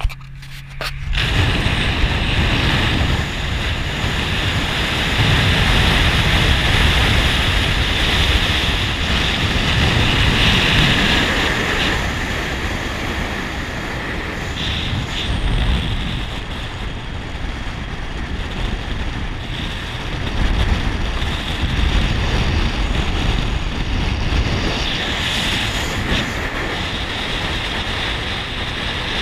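Steady wind rushing and buffeting over the microphone of a camera mounted on the outside of a moving car at road speed, with a deep rumble underneath. It starts abruptly about a second in.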